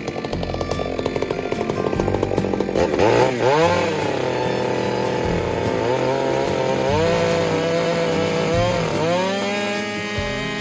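Two-stroke chainsaw cutting into fir log: a rapid chatter for the first few seconds, then the engine runs at high revs, its pitch dipping under load and recovering three times as the chain bites into the wood.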